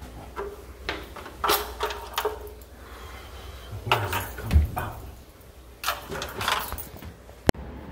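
Irregular knocks, scrapes and rattles as a man works by hand up in a ceiling access hatch, with a low thump about halfway and one sharp click near the end.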